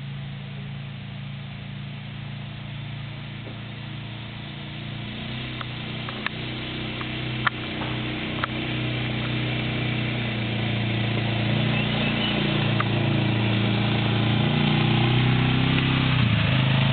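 ATV engine running steadily as the quad approaches and passes close by, growing louder throughout. A few short sharp clicks come a little past the middle.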